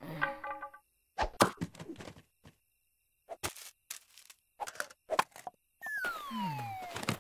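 Cartoon sound effects: a short pitched note at the start, then a string of sharp knocks and taps, and near the end a whistle-like glide that falls steadily in pitch.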